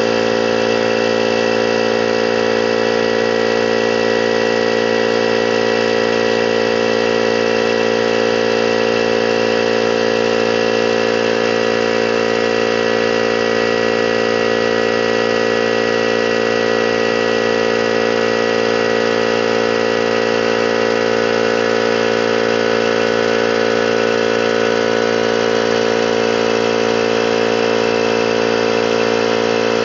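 Electric 21-gallon air compressor running loud and steady, pumping up its tank and the second tank linked to it by a hose.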